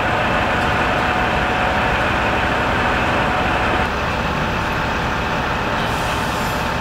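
Steady vehicle engine and traffic noise: a dense, even rumble with a faint steady tone running through it. It steps down a little about four seconds in.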